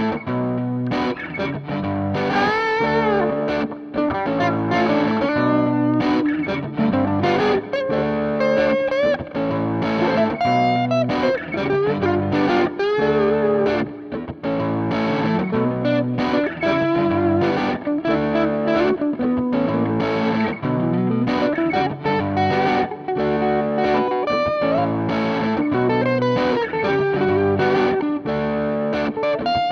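Electric guitar with a crunchy, lightly overdriven tone through a Zoom G1 Four multi-effects processor. A strummed chord loop repeats in a steady rhythm from the looper while a single-note lead line with string bends is played over it.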